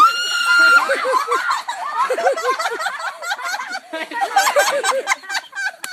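A child's long high scream at the start, then a farm bird giving quick, repeated calls, with more cries mixed in.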